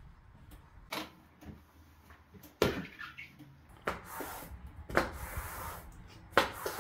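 Long-handled floor squeegee scraping water across wet bathroom floor tiles, with several sharp knocks about a second apart as the squeegee head strikes the floor.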